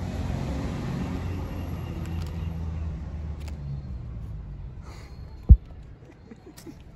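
Low rumble of a passing road vehicle, fading away over the first few seconds. About five and a half seconds in comes one sudden, loud low thump.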